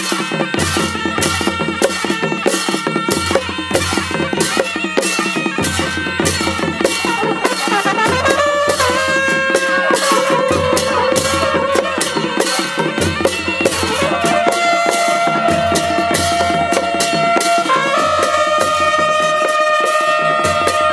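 Background music with a fast, steady percussion beat under a melody of long held notes, the melody sliding up about eight seconds in and stepping to new notes near the end.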